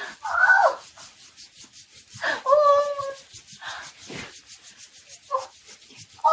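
A woman's short high-pitched vocal cries, several of them, the longest held for about a second starting a little over two seconds in, over faint rubbing of hands on skin during a leg and foot massage.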